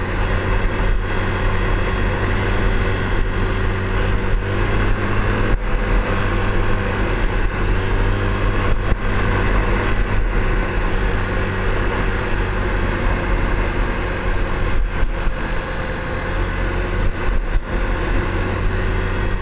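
Yamaha ATV engine running at a steady cruising pitch at speed on a rough dirt road, with heavy wind rush and occasional knocks from the bumps.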